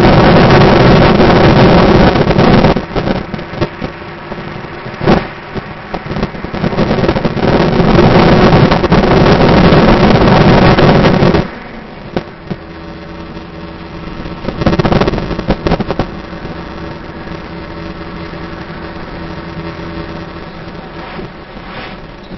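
A car driving along a road. For the first eleven seconds or so, loud wind buffets the microphone, which is held at the open side window, with a lull a few seconds in. The wind then cuts off abruptly, leaving the steadier, quieter hum of the engine and tyres heard inside the cabin.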